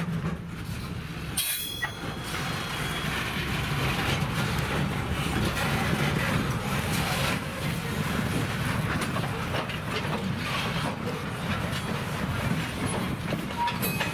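Loaded railroad flatcars rolling past, steel wheels clicking and rumbling over the rail joints, with a brief high wheel screech about a second and a half in.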